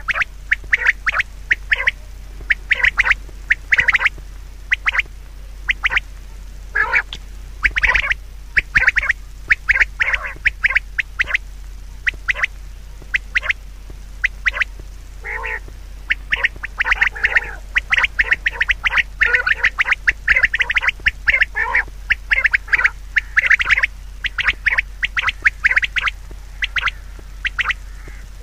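Animal calls: many short calls in quick, uneven succession throughout, several overlapping, over a steady low hum.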